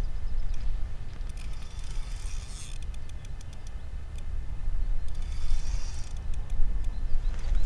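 Spinning reel on a feeder rod being cranked in two short spells, a fine rapid ticking whirr, over a steady low rumble.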